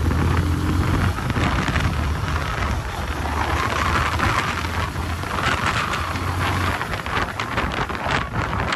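Wind rushing over the microphone of a rider on a moving motorcycle at road speed, with the bike's engine humming low underneath.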